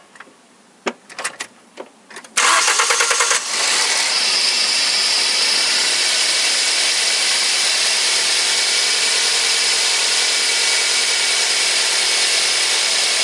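A few light clicks, then the Toyota Corolla's four-cylinder VVT-i engine cranks on the starter for about a second, catches, and settles into a steady idle. The newly fitted serpentine drive belt runs quietly, with no squeal.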